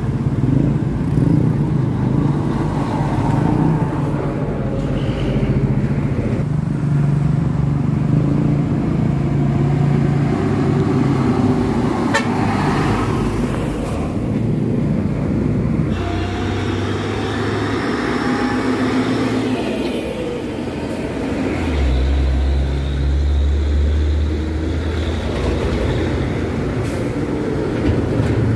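Heavy diesel dump trucks driving past one after another, their engines running loud and close, with horn toots among them.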